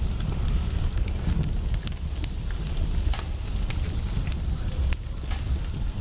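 Wood fire in a fireplace crackling: a steady low rumble with frequent, irregular sharp pops and snaps.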